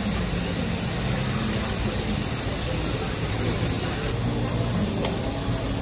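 Steady sizzling hiss from food cooking on a teppanyaki iron griddle, with a faint low hum underneath.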